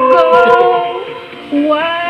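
A woman singing a slow love song. She holds the last word of a line for about a second, pauses briefly, then starts the next line near the end.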